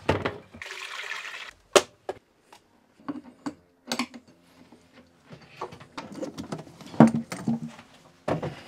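About a second of water pouring, then scattered metallic clicks and knocks of a spanner working on the starter battery's cable terminals in the bilge, with one louder knock near the end.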